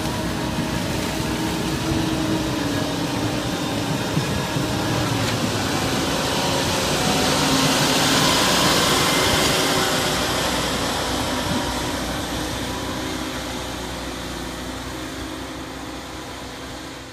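ROPA Panther self-propelled sugar beet harvester running while lifting beet: a steady din of engine and machinery. It is loudest about halfway through as the machine passes close, then fades as it moves away.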